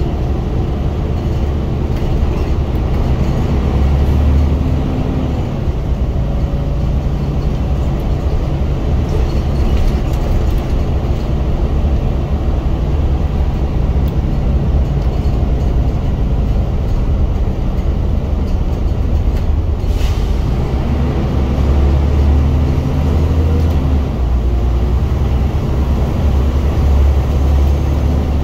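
Scania bus engine being worked hard under load, heard inside the cabin from the rear seats: a loud, deep running drone that swells about four seconds in and again from about twenty seconds in. A sharp click sounds about twenty seconds in.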